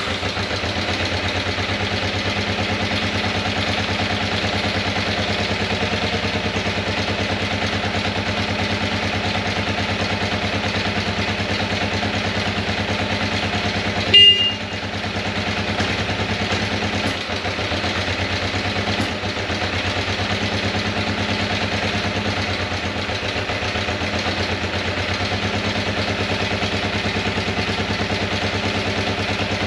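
Kawasaki 454 LTD parallel-twin engine idling fast and steady just after its first start, the idle hanging very high and not settling; the owner hopes cleaning out the carburettors will cure it. A brief sharp sound cuts in once about halfway through.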